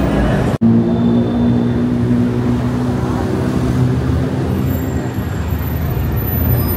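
City road traffic with a vehicle engine running in a steady low hum, over general road noise. The sound drops out for an instant about half a second in.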